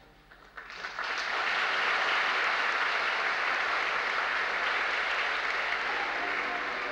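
Theatre audience applauding: a few scattered claps about half a second in swell within a second into full, steady applause, which eases slightly near the end.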